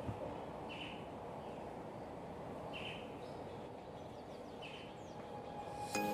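Short bird chirps, repeating about once a second over a steady background noise; music with clear ringing notes comes in right at the end.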